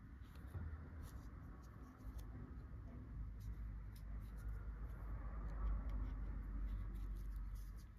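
Soft scratching and rustling of hands handling small crocheted yarn pieces while pinning a crocheted ear in place, with scattered faint clicks and a low rumble that swells in the middle.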